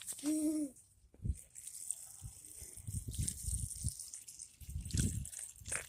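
Running water hissing and trickling, with repeated low knocks and rubbing, and a brief hum near the start.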